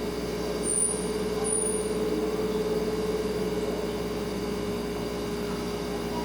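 Refrigerator running with a steady hum. Two brief, very high squeaks come in the first two seconds.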